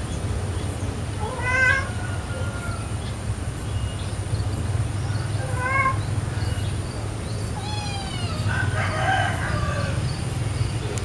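Cat meowing in short rising calls a few seconds apart, with a longer call near the end, over a steady low hum.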